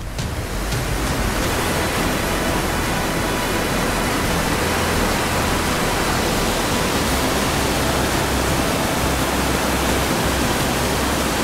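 Steady rush of fast-flowing water, an even, unbroken noise.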